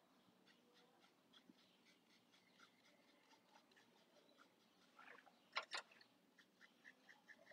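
Near silence with faint scratchy strokes of an angled paintbrush dabbing on watercolour paper, and a brief louder scratch about five and a half seconds in.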